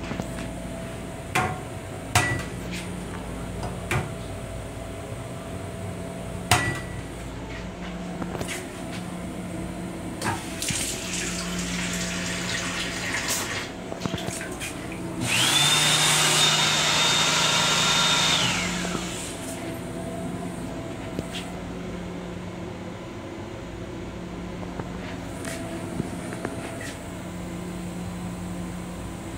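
An M7 commuter train's steady running hum with a few sharp knocks. The restroom sink's faucet runs water, then comes a loud rush of air about three seconds long with a high whine that rises as it starts and falls away as it stops, from the hand dryer in the same basin unit.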